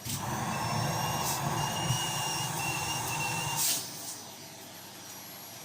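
Vacuum cleaner sucking with a loud rushing of air and a thin high whine for about three and a half seconds, ending in a brief sharp burst, then dropping away suddenly.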